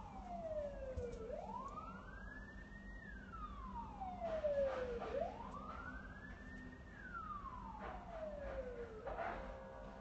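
Emergency-vehicle siren in a slow wail: the pitch climbs quickly, then slides down more slowly, about once every four seconds, repeating through the whole stretch.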